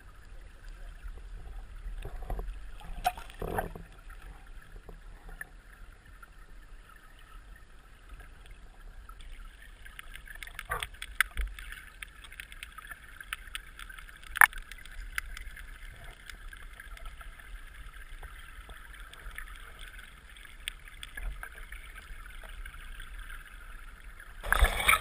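Shallow stream water heard through an underwater camera: a muffled steady hiss and low rumble, with a few sharp clicks and knocks, the loudest about halfway through. A sudden louder rush of water comes just before the end.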